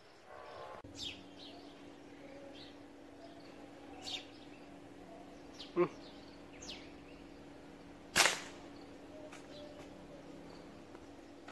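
Birds calling with short, falling whistles every few seconds over a faint steady hum. About eight seconds in comes a single sharp crack, an air rifle shot and the loudest sound. A short knock sounds a couple of seconds before it.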